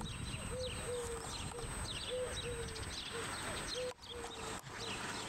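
Birds calling outdoors: many short, high, falling chirps, with a lower short call repeating about twice a second.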